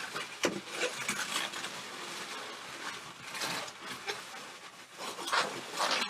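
Inflated latex modelling balloons rubbing, squeaking and creaking against each other as they are twisted together, with a few louder squeaky swipes about half a second in, in the middle and near the end.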